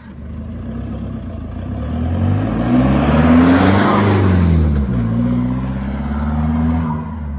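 Holden Colorado ute's engine revving as it drives. It climbs in pitch to its loudest about halfway through, falls away, then climbs again near the end.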